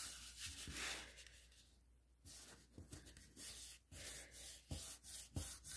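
Faint rubbing and brushing of hands smoothing down folded red cardstock, pressing a freshly glued fold flat, with a short lull about two seconds in.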